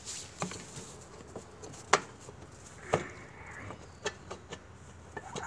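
Sharp clicks and knocks of small engine parts being handled on a Briggs & Stratton lawn mower engine during carburetor removal, about five separate strikes, the loudest about two seconds in.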